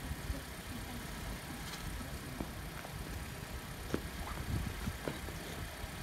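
Strong wind buffeting the microphone, a steady uneven low rumble, with a few light taps and scuffs of shoes on asphalt.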